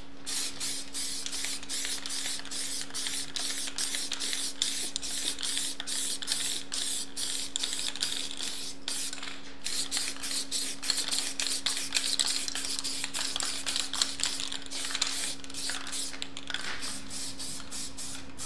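Aerosol spray-paint can hissing in many short, quick puffs with a brief pause about halfway through, over a faint steady low hum.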